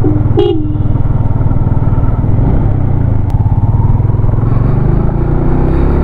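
Motorcycle engine running steadily while riding, heard from on board. A brief pitched note sounds about half a second in, and the engine note climbs slightly near the end.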